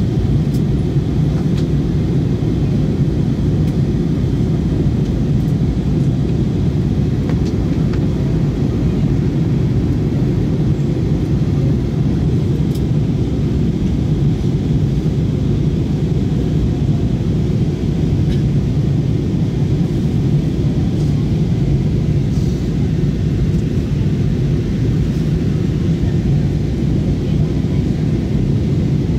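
Steady airliner cabin noise, the engines and the rush of air on the fuselage heard from a window seat as the plane descends to land. It is a constant low rumble with a low hum inside it, unchanging throughout.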